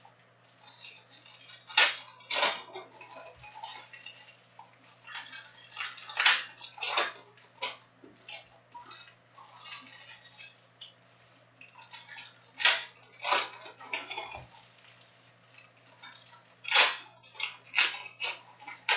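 Foil trading card pack wrappers being crinkled and torn open, with cards handled and stacked. Loud crinkling bursts come every few seconds, often in pairs.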